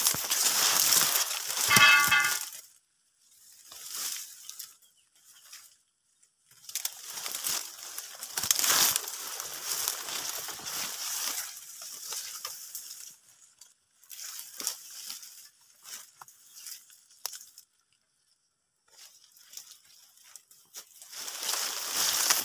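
Dry oil palm fronds rustling and crackling in repeated bursts as they are pushed and handled, with a short pitched call about two seconds in.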